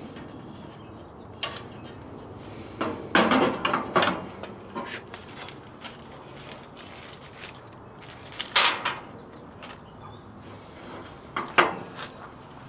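Hard plastic and glass knocks, clicks and rattles of a headlight and its clear plastic clamshell packaging being handled and fitted into the headlight opening. A cluster of rattles comes about three seconds in, and a sharp knock is heard past the middle.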